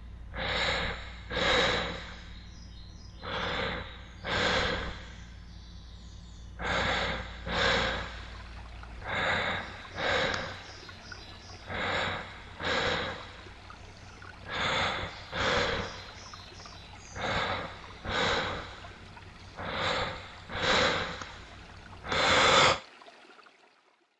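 A person breathing slowly and heavily, a loud in-breath and out-breath about a second apart, repeating roughly every two and a half seconds, over a faint low hum. The breathing stops shortly before the end.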